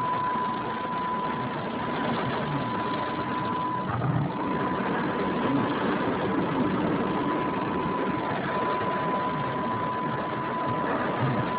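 Car engine and road noise heard from inside the cabin while driving, with a thin steady high whine that drops out briefly twice.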